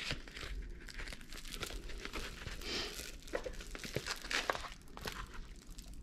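Clear plastic protective film on a rolled diamond-painting canvas crinkling as the canvas is unrolled and pressed flat by hand, a run of uneven crackles and rustles.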